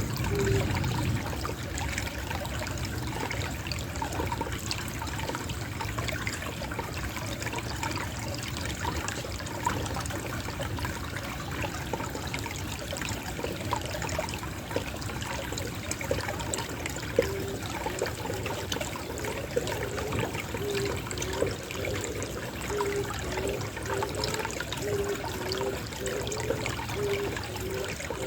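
Gentle, steady trickle of running water. A dove coos in a low, repeated phrase at the very start and again through the last part.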